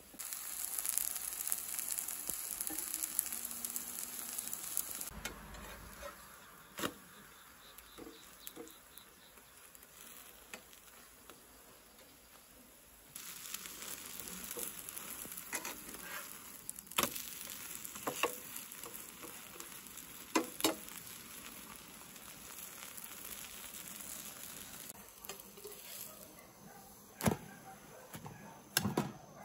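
Squash pancake (hobak-jeon) batter sizzling in hot oil in a frying pan, the sizzle stronger at the start and again from about halfway. A few sharp clicks of a spatula against the pan.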